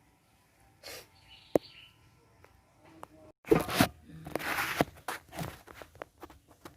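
Work handling noises: a sharp knock, then a short spell of rustling and scraping with scattered clicks.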